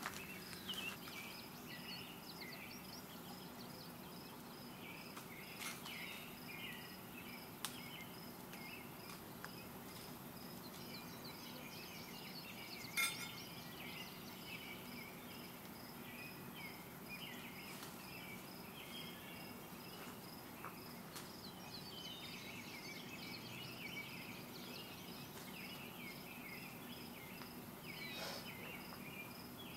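Rural outdoor ambience: an insect chirping in a steady, evenly spaced pulse, with birds twittering and a few sharp pops, the loudest about 13 seconds in.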